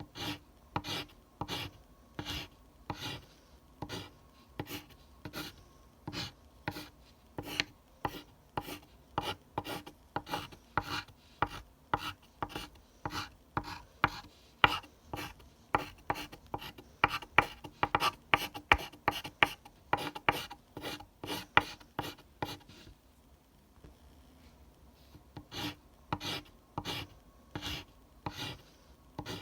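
Graphite pencil scratching across paper in a long series of short, rasping strokes. The strokes quicken in the middle, pause for a couple of seconds near the end, then start again.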